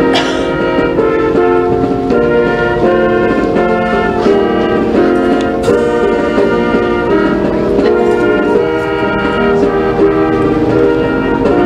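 Brass-led instrumental music playing a succession of held chords, steady and loud.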